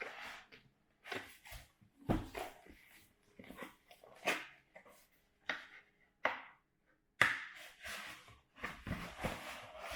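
Packaging being handled and unwrapped: a string of short, irregular rustles and taps, about a dozen over several seconds.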